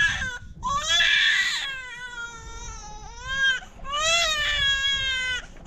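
A baby crying in a run of long, high-pitched wails, one after another.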